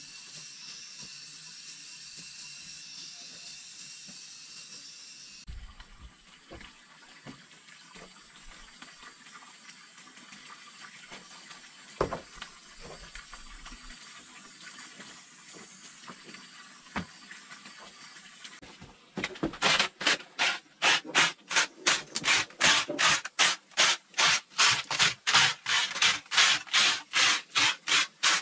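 A steady hiss for the first few seconds, then a few scattered sharp clicks, then loud rhythmic scraping strokes, about three a second, from about two-thirds of the way in.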